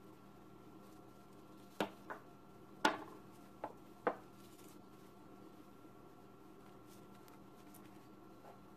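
A kitchen knife being set down on a counter: five short, sharp knocks and clinks over about two seconds, the loudest in the middle, over a faint steady hum.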